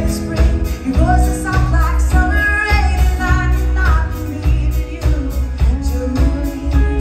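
Live country band: a woman sings the melody over strummed acoustic guitar and a steady drum beat.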